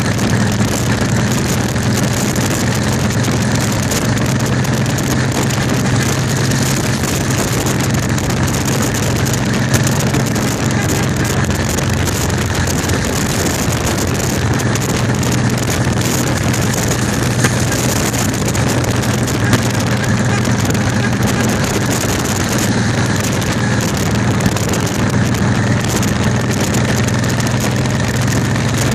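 Steady engine drone and road noise of vehicles travelling at cruising speed, with cruiser motorcycles riding close alongside. The sound stays even, with no revving or gear changes.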